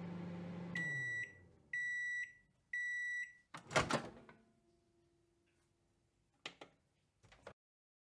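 Microwave oven finishing a cooking cycle: its running hum winds down about a second in, followed by three long end-of-cycle beeps about a second apart, then a loud clunk as the door is opened and two small clicks near the end.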